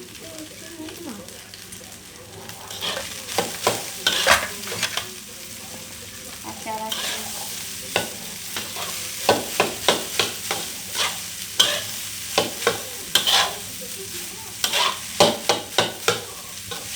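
Fried rice being stirred and tossed in a hot pan: a steady sizzle with irregular scraping strokes and knocks of the stirring utensil against the pan, which come thicker and faster from about halfway through. This is the stage where the freshly added rice is being mixed through the other ingredients.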